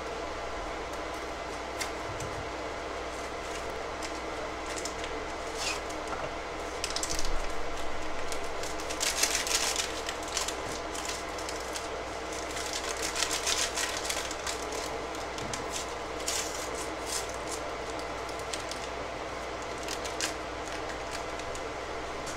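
Gelatin dessert box and its paper powder packet crinkling and tearing as they are opened, in several short bursts of rustling, over a steady background hum.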